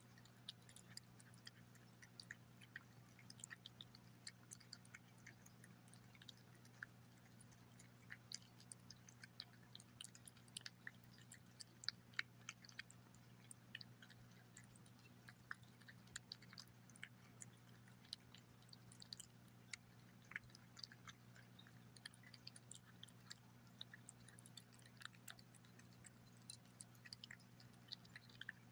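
Gray tabby cat eating wet chicken paté from a glass plate: faint, irregular wet smacking and licking clicks, several a second, over a steady low hum.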